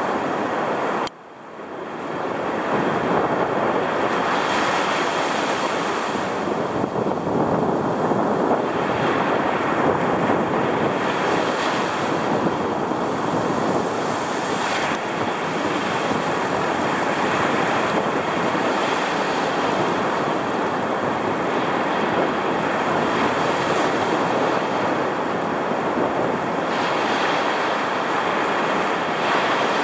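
Heavy storm surf roaring as breakers crash and wash up the beach at the water's edge, swelling every few seconds, with wind buffeting the microphone. The sound drops out sharply for a moment about a second in, then comes back.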